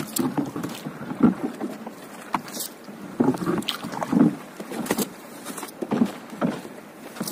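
Paddle strokes and knocks against a small fiberglass boat's hull while a floating gill net is paid out over the side: irregular splashes and knocks, one or two a second.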